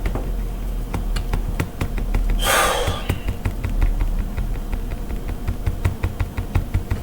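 Irregular light clicks and taps, with a short rush of noise about two and a half seconds in, over a steady low hum.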